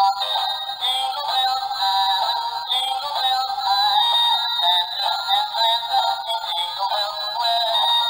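High-pitched, synthetic-sounding sung melody, its notes stepping up and down, a novelty comedy sound effect.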